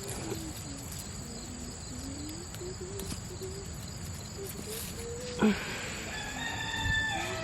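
Rooster crowing, one long call that starts about five and a half seconds in and runs on past the end. Before it there is only a faint low wavering sound under a steady high insect whine.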